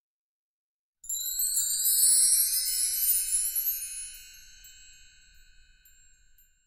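Sparkling logo sting: a cluster of high, tinkling bell-like chimes with rising glides comes in suddenly about a second in, peaks, and fades slowly away.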